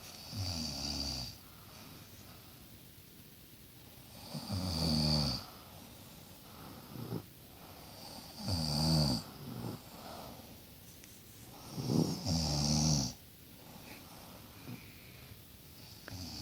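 A young boy snoring lightly in his sleep: about five snores, each roughly a second long, about every four seconds.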